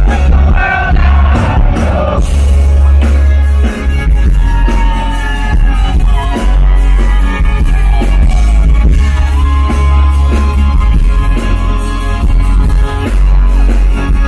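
Live rock band playing at full volume, heard from the audience in a large hall: a lead vocal sings long held notes over electric and acoustic guitars and drums, with heavy bass.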